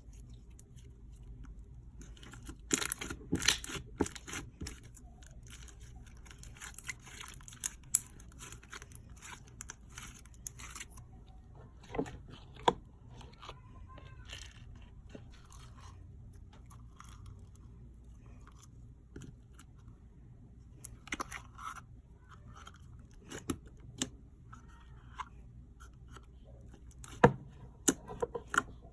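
Slime being squeezed and stretched by hand, giving scattered crackles and sharp pops, with a dense run of crackling early on.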